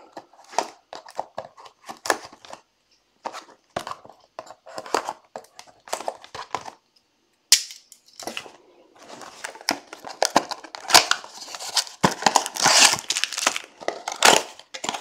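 Plastic shrink-wrap being cut and torn off a trading-card hobby box, then the box opened and the card packs pulled out and stacked. The crinkling and rustling is scattered at first and grows busier and louder in the second half.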